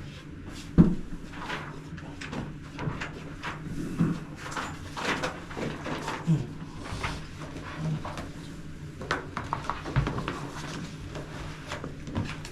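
Things being handled on a table: scattered clicks, taps and rustling, with one sharper knock about a second in, over a faint steady low hum.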